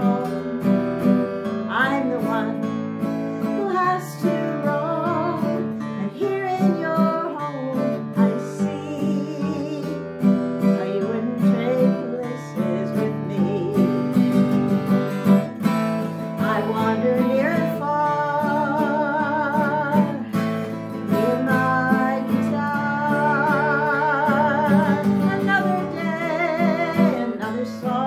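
Acoustic guitar strummed steadily, with a woman singing a melody over it; her held notes waver with vibrato in the second half.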